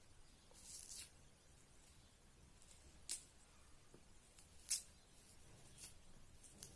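Faint scattered crackles and ticks of a red shallot being peeled apart by hand, down to its innermost layers; the sharpest tick comes nearly five seconds in.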